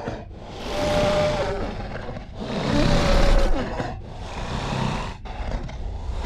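Carnotaurus dinosaur sound effect: a string of about four deep calls with short breaks between them, the loudest about three seconds in.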